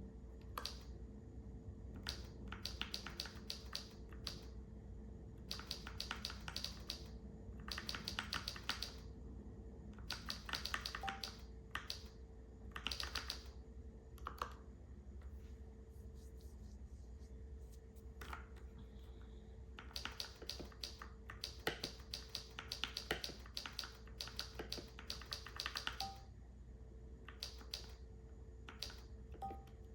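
Typing on a Keychron K4 v2 mechanical keyboard with Gateron G Pro brown switches: quick runs of key clacks in bursts of a second or two, with short pauses between them.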